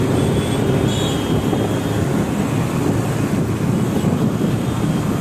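Steady riding noise from a moving scooter: wind rumbling on the microphone over the scooter and the surrounding traffic, with a faint high whine in the first second or two.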